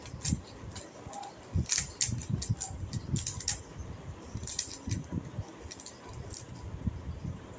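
Plastic speed cubes clicking and clacking irregularly as two people turn their layers quickly to scramble them.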